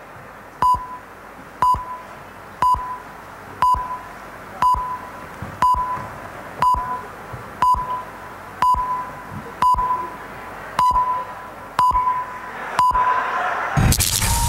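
Countdown beeps played over the PA, one short high beep with a click each second, thirteen in all. Near the end a loud rush of noise breaks in over a steady held tone.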